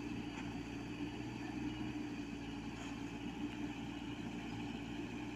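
Komatsu PC78US-8 mini excavator's diesel engine running with a steady, even drone.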